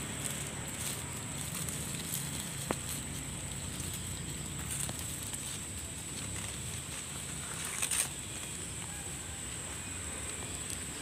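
Dry bamboo leaf litter crackling and rustling as a hand handles the mushrooms among it, with a sharp click about three seconds in and a louder cluster of crackles about eight seconds in, over a steady high-pitched whine.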